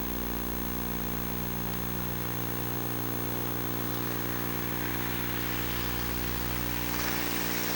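Steady electrical buzz from a Sony Hi8 Handycam's recording, a hum with many overtones under a faint hiss. A rushing noise swells over the last couple of seconds.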